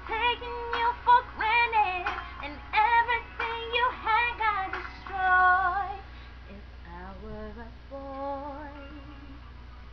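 A young woman singing solo into a webcam microphone, with loud, long, bending held notes for about six seconds, then softer, lower singing. A faint steady low hum runs underneath.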